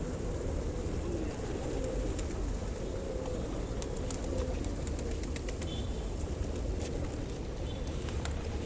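Pigeons cooing, with scattered short clicks over a steady low rumble.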